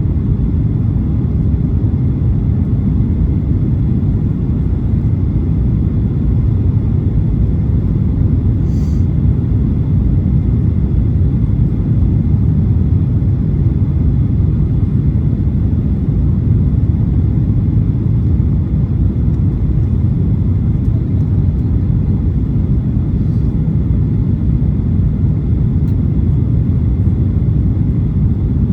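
Steady low cabin rumble of a Boeing 737-800 airliner, from its CFM56-7B engines and the airflow around the fuselage. It holds an even level throughout, with a couple of faint ticks.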